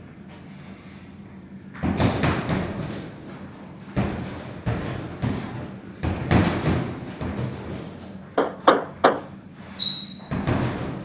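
Punches landing on a punching bag in combinations and flurries, starting about two seconds in, with three sharp hard hits in quick succession near the end. A short high tone sounds just after them.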